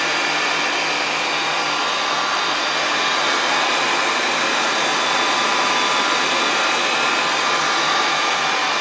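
Stainless-steel colloid mill (nut butter grinding machine) and its electric motor running steadily while grinding a foamy white slurry: an even whirring with faint steady whining tones, unchanging throughout.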